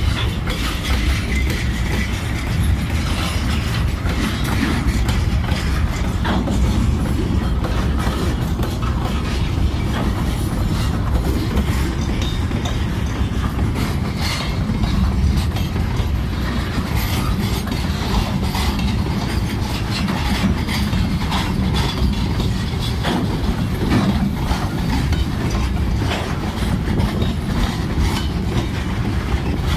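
Freight train of hopper wagons rolling past close by: a steady rumble of steel wheels on rail, with irregular clicks and clanks as the wheels and bogies pass over the track.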